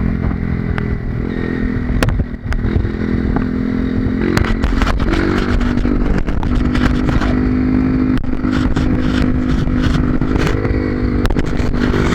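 Honda CRF230 dirt bike's single-cylinder four-stroke engine running on a trail, its pitch stepping up and down with throttle, and briefly dropping off about two seconds in. Scattered clattering knocks come from the bike over rough ground.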